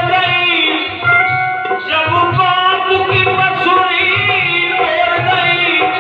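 Singing with tabla accompaniment: a melody that slides and bends over steady, rhythmic tabla strokes, with other instruments behind.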